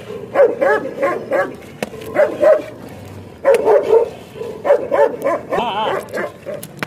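A dog yapping in quick runs of short barks, six or so runs with brief gaps between them.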